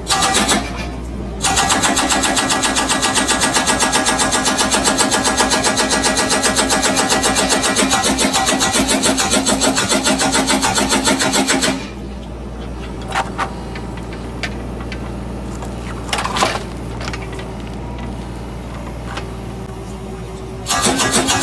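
Eddie EDT 200 hydraulic breaker on a Takeuchi TB 225 mini excavator hammering concrete in rapid blows: first a brief burst, then a run of about ten seconds. The hammering then stops and the excavator's engine runs on alone with a few single knocks, and the hammering starts again near the end.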